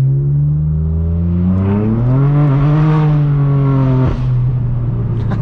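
Straight-piped BMW M4 F82's twin-turbo inline-six exhaust, loud as the engine pulls: its note rises in pitch over about a second and holds, then drops abruptly about four seconds in at a gear change and runs on steady and lower.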